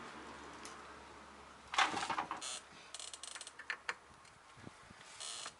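Metal tools and car parts being handled: a run of short clinks, knocks and scrapes beginning about two seconds in.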